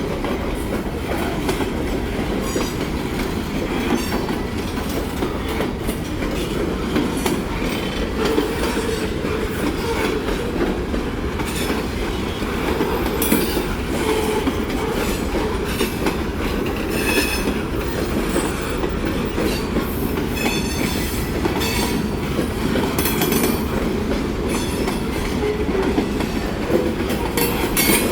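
Freight train cars rolling past on the rails, a steady loud rolling noise. Brief high-pitched wheel squeals come several times, about halfway through and again later.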